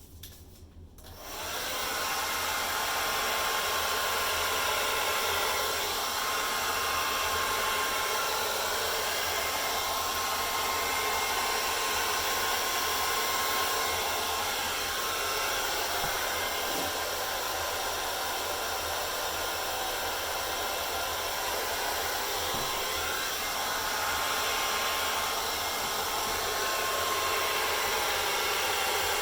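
Hair dryer switched on about a second in, then running steadily with a faint steady whine in the airflow, blowing poured acrylic paint across a canvas.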